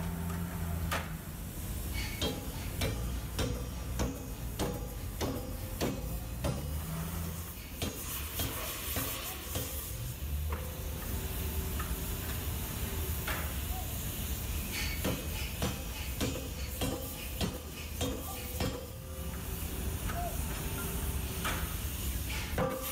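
Forge-shop sounds around a red-hot steel billet: a sizzling, crackling hiss with many irregular sharp knocks and clicks over a low machinery hum that fades and returns.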